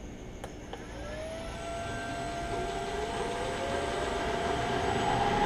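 A Clausing 1500 lathe's 7.5 hp three-phase motor spinning up on a variable frequency drive: after a small click, a whine that climbs steadily in pitch and grows louder as the drive ramps the speed up.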